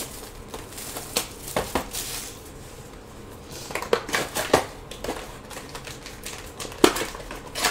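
Scattered sharp clicks and taps of trading cards and hard plastic card holders being handled and set down on a table, with the loudest click near the end.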